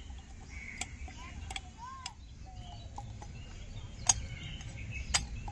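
A handful of light, sharp clicks and taps as oil is brushed inside glasses, the loudest about four and five seconds in. Faint bird chirps sound in the background.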